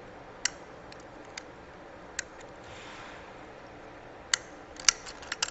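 Metal clicks of a flat snap ring being worked into its groove in the clutch drum of a 42RLE automatic transmission: a few single clicks, then a quick run of sharper clicks near the end as the ring seats.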